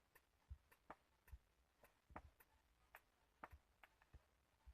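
Near silence, with faint irregular clicks.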